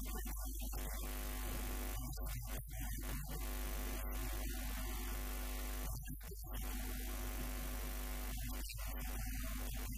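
Steady electrical mains hum with a buzz of evenly spaced overtones, constant in level.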